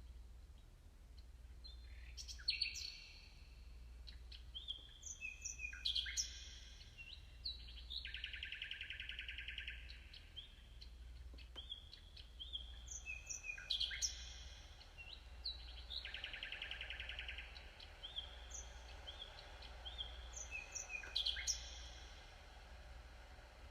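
Sound of Soul heartbeat-to-music device playing high, bird-like chirping notes with short buzzy trills, in a phrase that comes back about every eight seconds. The music is generated in real time from a person's heartbeat. A steady low hum runs underneath.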